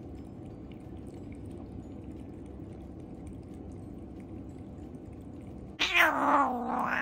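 A cat lapping water from a ceramic bowl, faint and steady, then near the end an adult cat's loud, drawn-out angry yowl that bends up and down in pitch: a warning at a pestering kitten.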